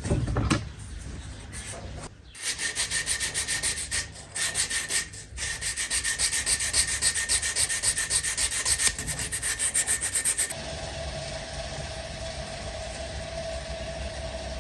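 Hand sanding: rhythmic back-and-forth abrasive strokes, about four a second, stopping about ten seconds in. A steady hum follows.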